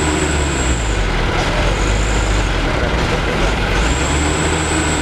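Loaded Mitsubishi Fuso dump truck's diesel engine running hard under load as the truck labours through deep mud, with a high thin whistle coming and going three times.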